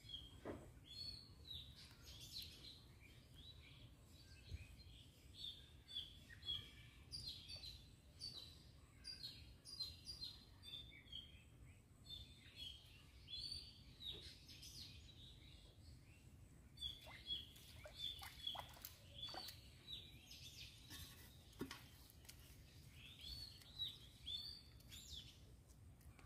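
Birds chirping faintly: many short, high calls in quick clusters, over a low steady background noise.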